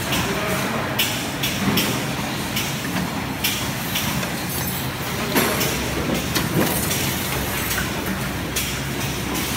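Automatic wire-bending machines running on a factory floor: a steady mechanical hum with frequent short hissing bursts at uneven intervals.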